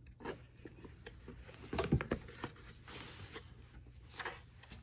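Hands handling a rigid cardboard perfume presentation box and its paper insert: scattered taps, scrapes and paper rustles, the loudest cluster about two seconds in.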